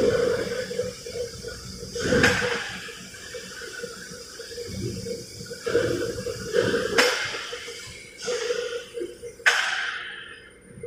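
Steel plates clanking as they are handled and stacked, three sharp metallic clanks that ring and echo, over a rushing hiss of shop machinery.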